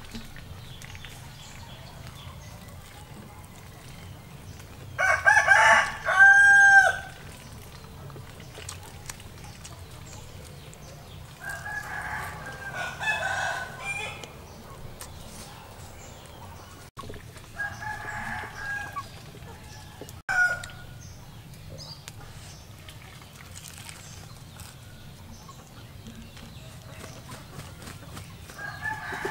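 Roosters crowing several times, the loudest crow about five seconds in, with fainter crows around twelve and eighteen seconds and another starting at the very end.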